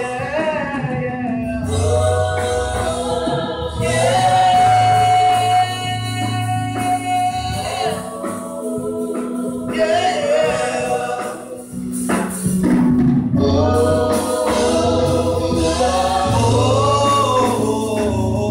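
Gospel singing by a man and a group of women into microphones, with held low bass notes underneath.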